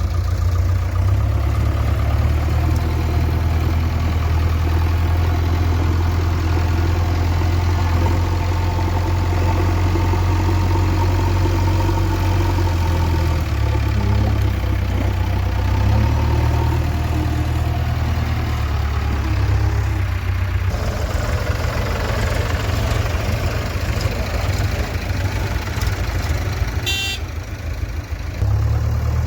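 Heavy diesel engine running steadily, its low note shifting several times as throttle or load changes.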